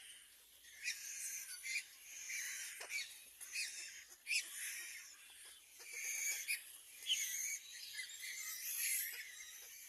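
Nestling crows giving repeated raspy, hissy begging calls, many short calls overlapping one after another.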